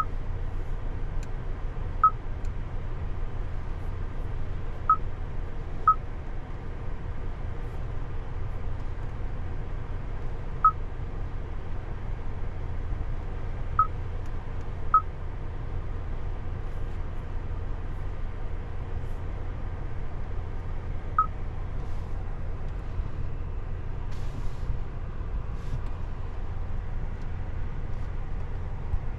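Infotainment touchscreen of a 2020 Hyundai Elantra SEL giving short single-pitched beeps as it is tapped, seven in all at uneven intervals. Under them runs the steady low hum of the car's 2.0-litre inline-four idling, heard from inside the cabin.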